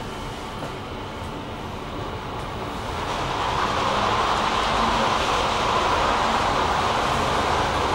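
Inclined elevator cabin running along its sloped track, a steady rumbling hiss that grows louder about three seconds in.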